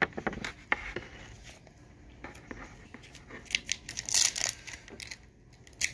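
A silver foil trading-card pack being torn open by hand: a run of crinkles and short tearing rips, the loudest about two thirds of the way in and again near the end.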